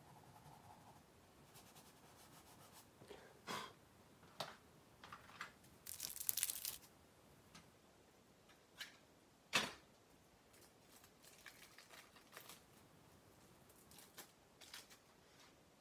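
Rubber eraser rubbed in short, scratchy strokes across charcoal and chalk on paper, the longest spell of rubbing about six seconds in. A single sharp knock comes near ten seconds in.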